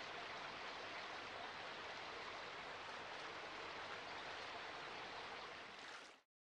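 Faint, steady rushing of a shallow river running over rocks. It fades slightly and stops about six seconds in.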